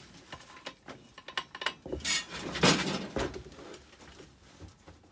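Metallic clicks, knocks and a louder scrape about two seconds in, from a hand tool working on the disc and flange of a Bosch GWS 20-230 angle grinder as its diamond disc is being loosened, which is on tight.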